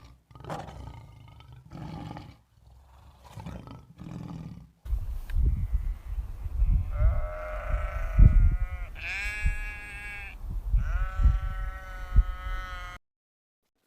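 Animal calls: about five short, separate calls in the first five seconds, then a change to a louder recording with a deep rumble under three long, drawn-out pitched calls, which stops abruptly near the end.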